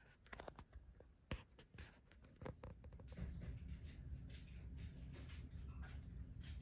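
Faint scratching and light ticks of a horned lizard pushing up out of the sand and feeder crickets moving about on it, with one sharper click about a second and a half in. A low steady hum comes in about three seconds in.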